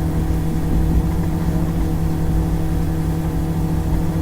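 Steady low mechanical hum holding several fixed tones, unchanging throughout.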